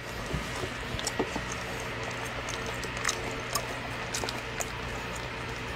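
Small plastic sauce packet of salted-shrimp sauce being squeezed out into a takeout box: faint squishes and small crackling clicks over a steady low hum.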